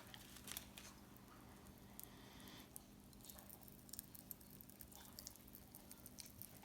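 Faint, scattered tiny pops and crackles of Aftershocks popping candy fizzing in a mouth.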